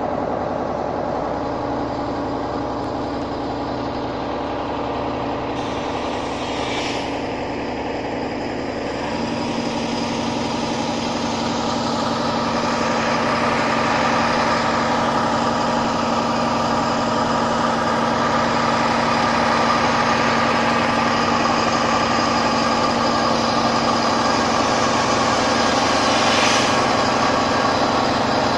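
Fire truck's diesel engine idling steadily, with a hum that shifts and settles into a higher steady drone about nine seconds in.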